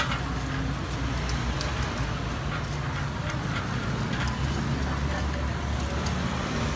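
Takoyaki pan at a street stall: light, irregular clicks of a metal pick turning the balls in the pan, over a steady low rumble and background voices.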